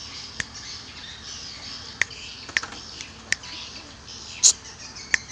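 Birds chirping: a steady background of high twittering broken by about six short, sharp chirps, the loudest about four and a half seconds in.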